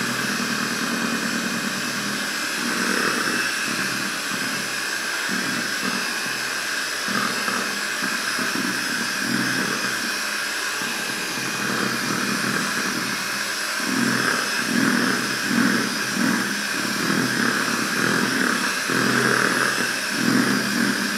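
Electric hand mixer running steadily, its beaters churning thick cake batter in a bowl.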